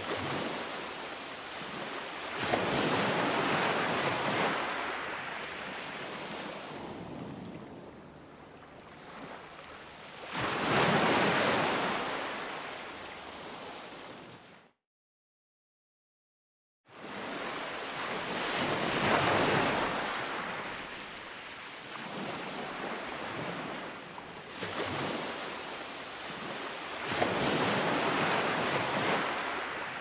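Sea waves breaking on a shore, the surf swelling and fading in long surges every seven or eight seconds. The sound drops out completely for about two seconds about halfway through.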